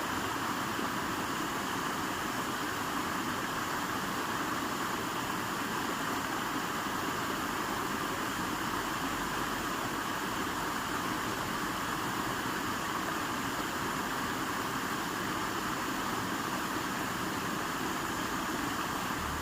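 River water rushing, a steady, unbroken hiss.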